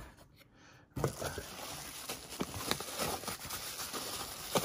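Bubble-wrap bag crinkling and rustling as it is handled in a cardboard box, starting suddenly about a second in, with scattered crackles and one sharper crackle near the end.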